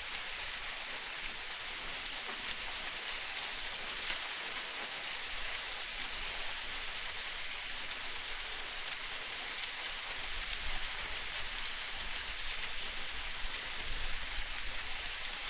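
Steady, rain-like hiss of water, with a low rumble joining in from about ten seconds in.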